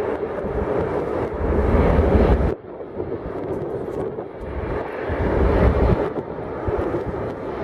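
Jet engine noise from a landing Boeing 737-800's CFM56 engines, a steady rushing rumble, overlaid by heavy wind buffeting on the microphone. The noise drops off suddenly about two and a half seconds in, then builds again.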